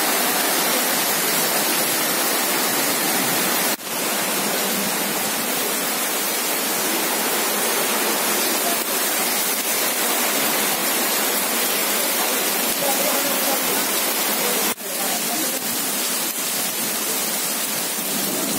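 Heavy rain pouring onto a wet street and its puddles, a dense, steady hiss of splashing drops. The sound cuts out briefly twice, about four seconds in and again near fifteen seconds.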